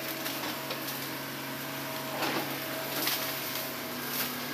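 Hitachi hydraulic excavator's diesel engine running steadily as the machine swings, with a few short louder surges.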